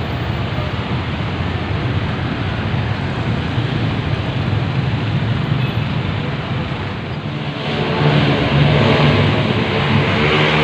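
Busy city road traffic: a steady rush of car and motorcycle engines and tyres. About three-quarters of the way through, a nearby vehicle's engine grows louder over it.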